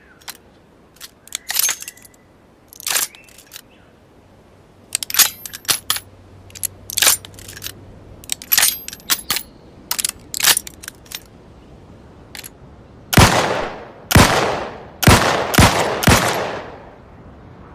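Heavy revolver sound effect: a long series of sharp metallic clicks of the gun being handled, then five heavy shots in quick succession, each with a long ringing tail.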